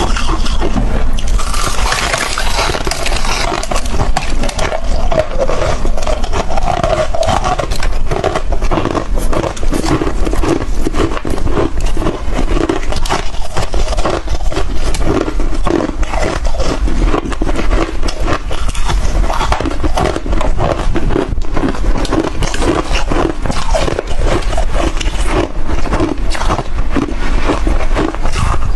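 Hard chunks of freezer frost being bitten and chewed, a dense run of crunches with no let-up.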